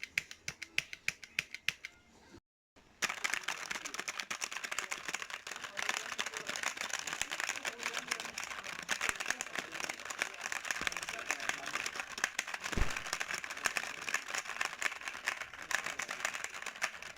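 Mechanical keyboard being typed on: separate keystrokes at about five a second, then a brief silent gap about two and a half seconds in, then fast, dense continuous typing.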